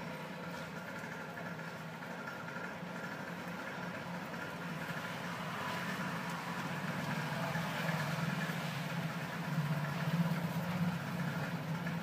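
Steady low hum of an idling engine over background noise, growing a little louder in the second half.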